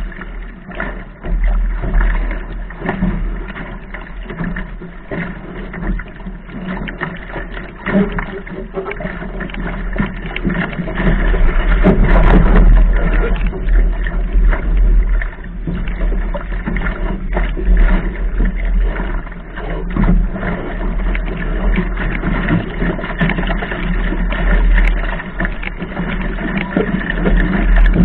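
Laser sailing dinghy's hull slapping and splashing through choppy water under way, with strong wind rumbling on the deck-mounted camera's microphone. The sound is loudest as a gust picks the boat up about halfway through.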